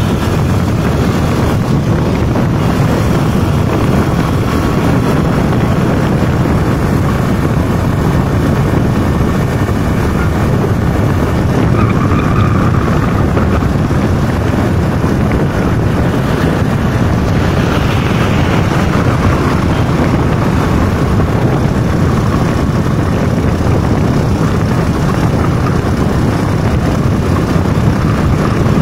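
Steady, loud rumble of a vehicle travelling at speed, heard from on board: engine and road noise, with wind on the microphone.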